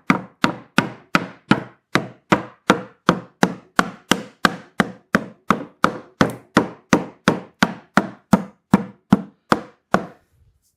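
Rubber mallet tapping the dovetail joints of a cedar beehive box together, in a steady run of knocks about two or three a second that stops about ten seconds in.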